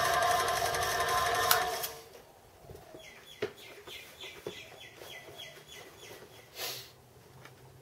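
Home-built Gingery milling machine running and cutting metal, shut off about two seconds in so the noise dies away. After that, a faint quick run of short chirps, a few light clicks and a brief rustle.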